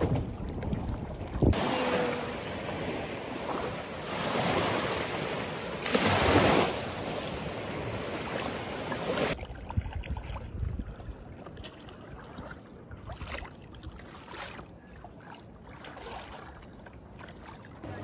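Seawater rushing and sloshing around a kayak, with wind on the microphone. A loud steady rushing stretch swells twice and ends abruptly about nine seconds in, followed by quieter small splashes and drips.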